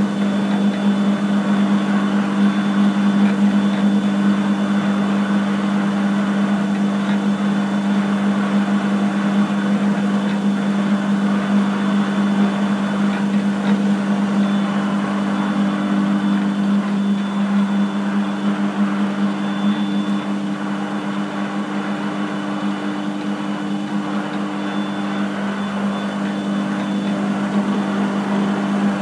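Large-swing engine lathe running, its electric motor and gearing giving a loud, steady hum with an even mechanical whirr over it.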